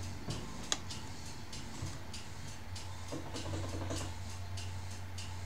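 Hands working inside an opened laptop, with one sharp click of a part or connector a little under a second in. Beneath it run a steady low hum and a regular faint ticking about three times a second.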